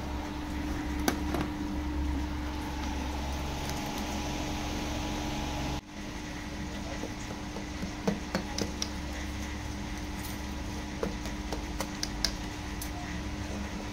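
A hand mixing gram-flour batter in a steel bowl, then a knife cutting a steamed egg block in a steel bowl. In the second half the blade makes several light clicks against the metal, over a steady background hum.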